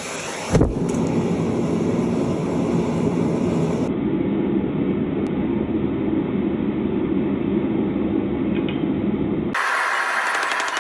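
Homemade propane forge burner running with a steady low roar, with one knock about half a second in. Near the end the low roar cuts off abruptly, leaving a thinner, higher hiss with rapid faint ticking.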